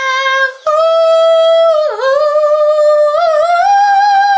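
A woman singing unaccompanied in long, held high notes with a slight waver. The voice breaks off briefly about half a second in, slides down and back up about two seconds in, and steps up to a higher note near the end.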